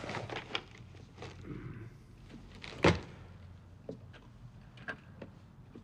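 Cloth rustling and a few light knocks as towels are handled, with one sharper thud about three seconds in.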